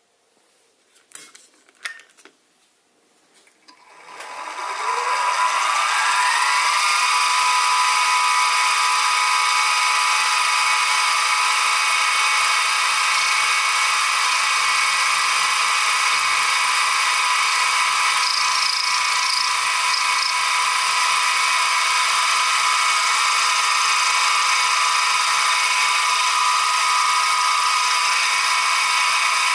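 A few light clicks, then about four seconds in the Sieg SX2P mini mill's spindle motor starts and spins up with a rising whine. It then runs steadily at speed while a 3 mm end mill cuts a slot in a brass workpiece.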